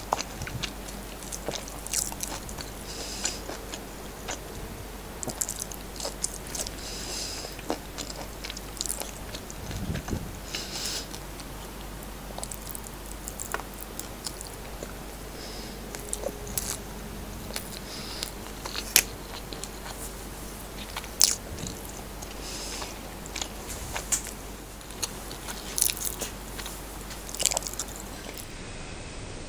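A person eating close to the microphone: chewing mouthfuls of fried rice, with frequent sharp clicks of the lips and mouth, irregularly spaced.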